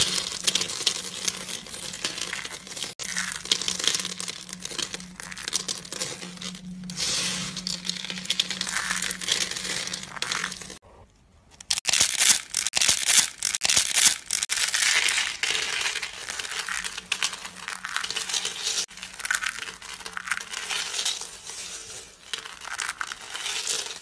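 Dry, brittle shaved soap flakes and curls crunching and crackling as hands squeeze and press them: a dense run of rapid crackles. It breaks off for about a second near the middle, then resumes.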